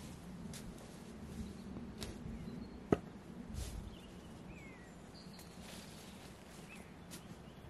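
Outdoor ambience with a few short, faint bird chirps and light ticks. One sharp knock about three seconds in is the loudest sound.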